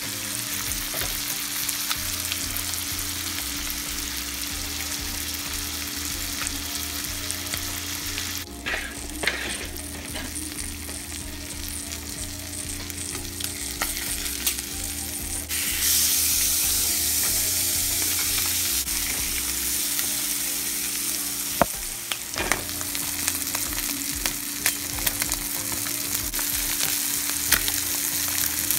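Shrimp and tilapia fillets sizzling in a nonstick frying pan, with a slotted spatula scraping and tapping as the pieces are turned. The sizzle drops for several seconds about a third of the way through, then comes back louder.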